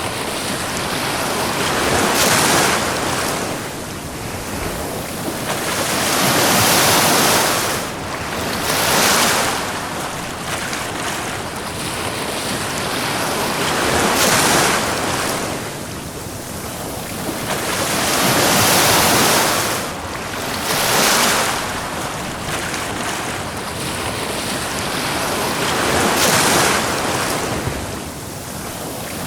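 Ocean waves breaking and washing up the shore of a beach, a steady hiss of surf that swells with each wave every four to seven seconds.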